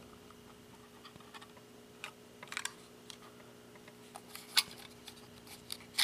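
Scattered small clicks and scrapes of a laptop hard drive being worked out of its caddy by hand, the loudest click about four and a half seconds in, over a faint steady hum.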